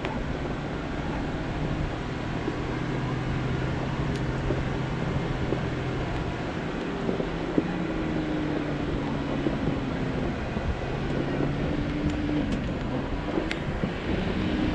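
Jeep Wrangler engine running at low revs while the vehicle crawls along a rough mountain trail, with wind noise on the microphone. The engine note holds steady, then wavers in pitch through the second half as the revs change, and there are a few sharp ticks.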